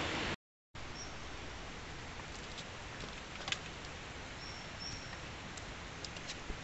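Outdoor ambience: a steady hiss with a few short, high chirps and a couple of faint clicks, after the sound drops out for a moment near the start.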